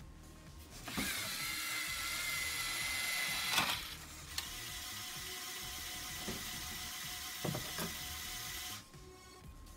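LEGO Mindstorms EV3 robot's motors whining through their gears as they drive its crane-style attachment arm, built with a turntable and a linear actuator. One run of whine starts about a second in and stops just before four seconds. A second, slightly quieter run lasts until near the end, with a few clicks of the plastic parts along the way.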